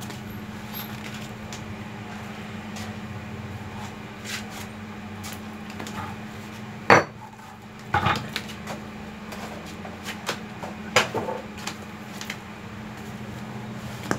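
Clunks and clatter of a heavy concrete cutter and its power cord being set down and handled on a floor: one loud knock about halfway, then a few more knocks, over a steady low background hum. The motor is not running.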